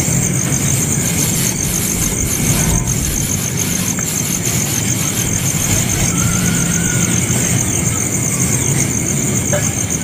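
Steady high-pitched insect drone, cicadas or crickets, with a low hum underneath.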